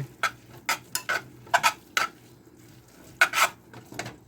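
A utensil scraping and stirring in a pot as drained pasta and butter are mixed together: a string of short, irregular scrapes with a pause about midway.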